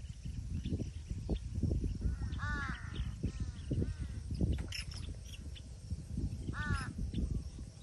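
Crows cawing: a cluster of calls about two to four seconds in and another near the end, over a continual low rumble.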